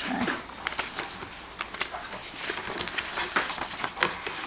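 A stack of loose sheets of drawing paper being leafed through by hand: irregular rustling and crisp crackles of the paper.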